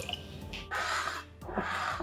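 Water poured from a glass jug into a glass bowl of soaking almonds, splashing in two rushing swells, over soft background music.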